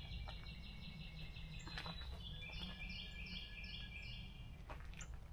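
Songbirds singing in woodland: a fast run of repeated high notes, then a series of repeated short, high phrases until near the end. A steady low rumble runs underneath.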